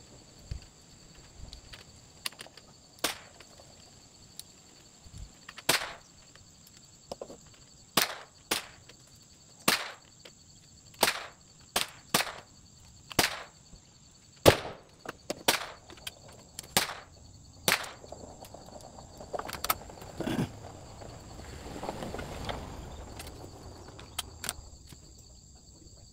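A steady high insect drone, with about twenty sharp cracks and clicks spaced a second or so apart. A brief rough rustle comes about twenty seconds in.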